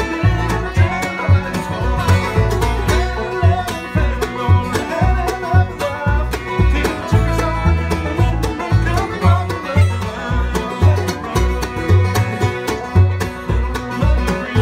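Acoustic bluegrass band playing a song together: mandolin, fiddle, banjo, guitar and dobro over a bass keeping a steady beat of about two notes a second, with a man singing lead.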